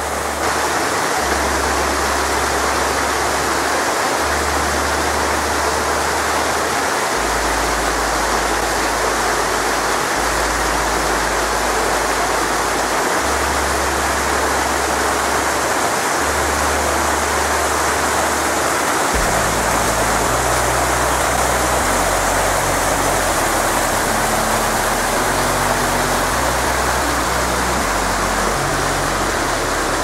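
Mountain stream rushing over rocks and small cascades: a steady, unbroken rush of water.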